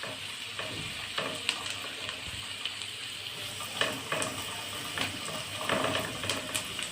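Chopped onion frying in a little oil in a pan, sizzling steadily while it softens. A spoon stirs it and clicks and scrapes against the pan now and then.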